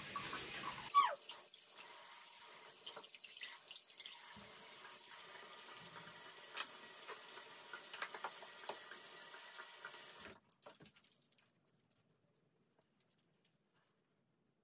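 Bathroom sink tap running in a steady faint hiss, with a few light clicks, then stopping suddenly about ten seconds in.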